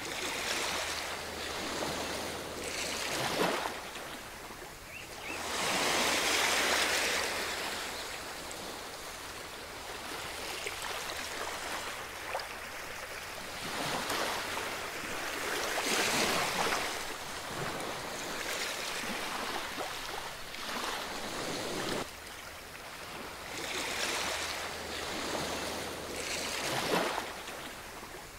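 Ocean surf on a beach: waves swell up and wash back every few seconds, with a steady rush of water between them.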